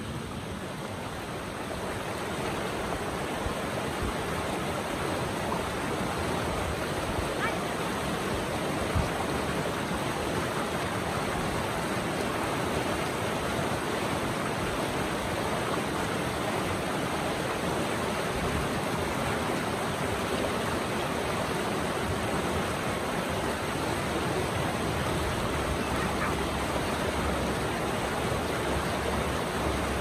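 Shallow, rocky river rushing through small rapids over boulders: a steady, even rush of water.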